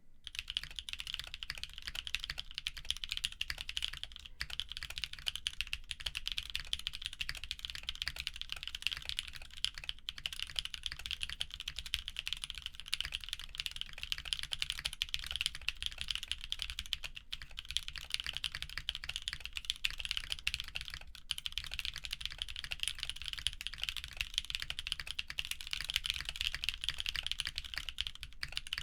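Continuous fast typing on a mechanical keyboard with lubed linear switches (Kailh Burgundy stems in MX Black housings), a polypropylene plate and PBT keycaps: a steady, dense stream of key clacks.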